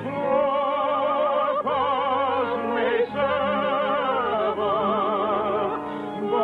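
Operatic singing with a wide, steady vibrato over orchestral accompaniment, in sustained held phrases.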